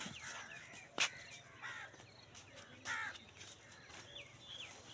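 Birds calling: many short falling chirps, with two louder calls about 1.7 and 3 seconds in. A single sharp click about a second in is the loudest sound.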